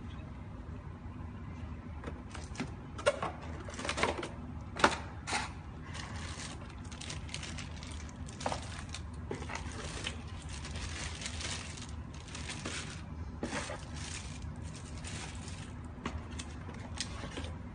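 Plastic packaging bags crinkling and rustling as a dash cam and its bagged accessories are unwrapped and handled, with a few sharp knocks about three to five seconds in. A steady low hum runs underneath.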